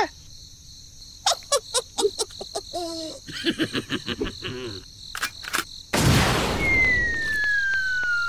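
Cartoon sound effects over a steady cricket-chirping bed: a run of short squeaky clicks with a brief wobbling note, then, about six seconds in, a loud rushing noise with one long falling whistle, the sound of a bomb dropping just before the explosion.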